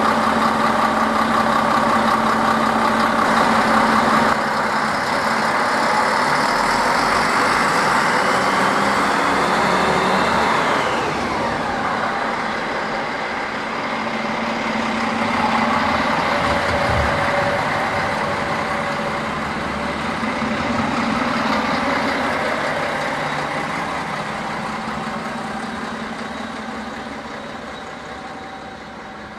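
Two coupled DB class 650 Regio-Shuttle diesel railcars running their engines as they pull out of the station. A whine rises and then drops in pitch around ten seconds in, and the engine sound fades away toward the end as the train moves off.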